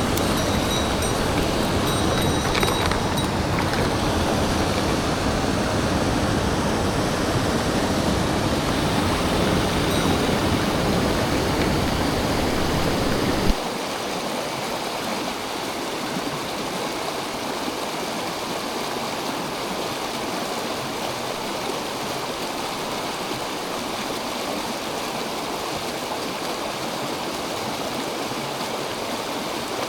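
Mountain stream water rushing over rocks in a steady noisy wash. About 13 seconds in, a deep rumble under it stops abruptly with a click, leaving a lighter, quieter hiss of running water.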